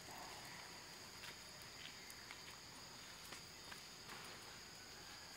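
Faint, steady high-pitched drone of forest insects, with a few faint scattered clicks.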